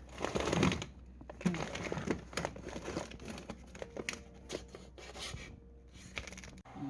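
Plastic food packaging crinkling and rustling as it is handled, with a few light clicks and knocks.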